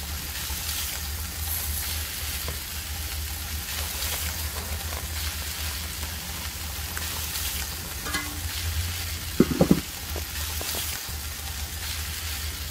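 Lamb shoulder chops and bacon-wrapped pierogies sizzling on a charcoal grill grate over hot coals, a steady frying hiss. A short clatter about three quarters of the way through.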